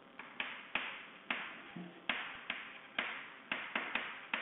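Chalk writing on a blackboard: about a dozen sharp taps, each followed by a short scratch of the chalk, coming at irregular intervals.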